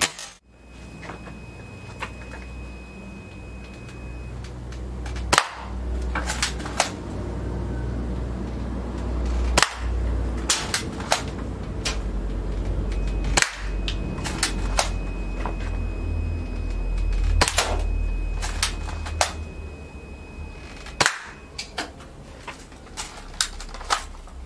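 Spring-powered airsoft rifle (an SVT-40 replica built on a Crosman M47) firing single shots, about five sharp cracks a few seconds apart. Each crack is followed by a few quick lighter clicks.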